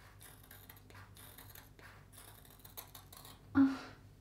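Hairdressing scissors snipping repeatedly through a thick lock of hair in many small cuts, the blades working their way across it. A short vocal sound from the person cutting is heard about three and a half seconds in.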